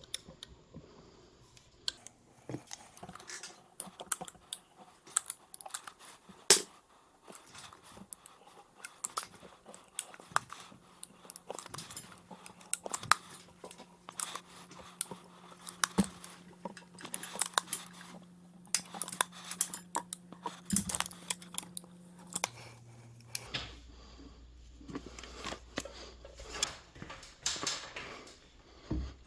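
Irregular clicks, taps and knocks of hands-on carpentry work, scattered unevenly with no steady rhythm.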